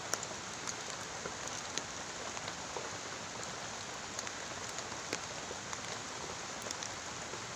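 Steady rain hiss, with scattered drops ticking sharply on nearby surfaces.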